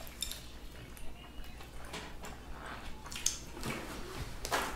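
Quiet table sounds of people eating sushi rolls with chopsticks: scattered small clicks and mouth noises. Near the end a paper towel is torn off its roll with a short tearing rustle.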